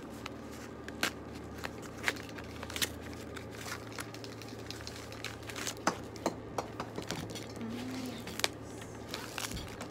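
Padded paper mailer being handled and opened by hand, crinkling and crackling, with many scattered sharp clicks.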